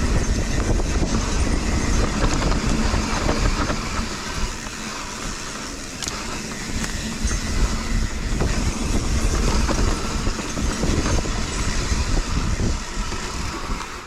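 Mountain bike rolling fast down a rough dirt trail: a steady rush of noise with a constant clatter of small knocks and rattles from the tyres and bike over the ground.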